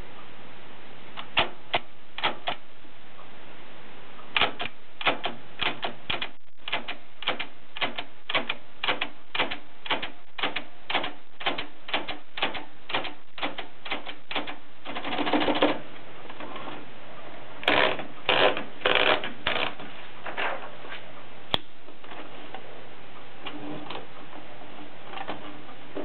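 Olympia Traveller de Luxe portable typewriter being typed on: single keystrokes, a few at first, then an even run of about two a second. About fifteen seconds in comes a denser clatter, followed by a few louder strikes and some fainter clicks near the end.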